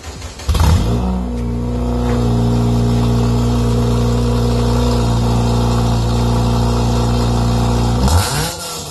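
Honda Civic four-cylinder engine starting and idling through a catless header and straight-through catback exhaust, heard at the tailpipe. It catches with a loud burst about half a second in and settles into a steady, loud idle. Near the end there is a short burst and the pitch falls away.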